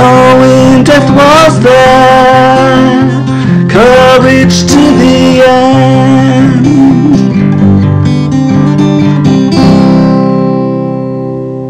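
Closing bars of a slow acoustic ballad: a voice singing long, wavering notes over acoustic guitar, ending on a final chord that rings and fades from about ten seconds in.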